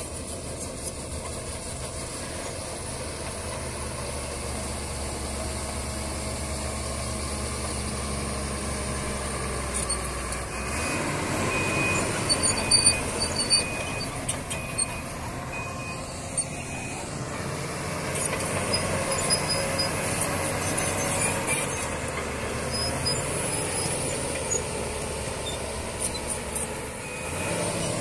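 Shantui crawler bulldozer's diesel engine running as it pushes earth, getting louder about ten seconds in, with sharp metal clanks and a repeating high beep for several seconds.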